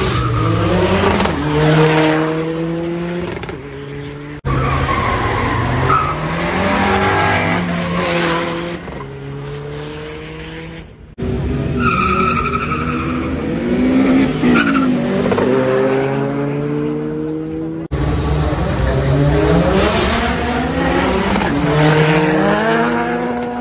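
Tuned VW Golf IV 4x4 TDI diesel engine accelerating hard down a drag strip, its revs rising and then dropping back at each gear change. The sound breaks off abruptly three times between short clips of separate runs.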